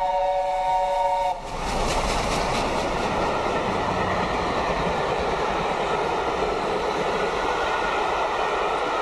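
LNER A4 4464 Bittern's three-chime whistle sounds a steady chord, which stops about a second in. Then comes the loud, steady rush of the steam train's coaches passing close by at speed.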